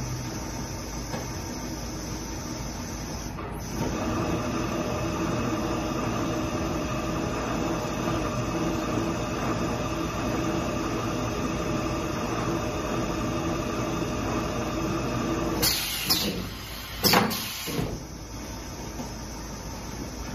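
Automatic four-station turntable tapping machine running: a steady hum of its spindle drives with several held tones, stepping up louder about four seconds in. Near the end come two short, loud bursts of air hiss.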